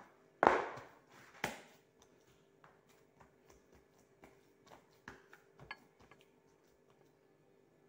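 Ball of bread dough handled in a plastic basin: a loud thump about half a second in, a sharper knock a second later, then a few faint taps and knocks of hands working in the basin.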